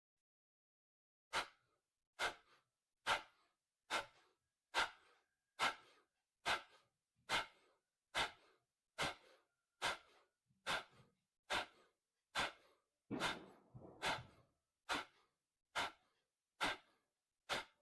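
Kapalbhati breathing: about twenty short, forceful exhalations through the nose, evenly spaced a little under a second apart, each a sharp puff of breath.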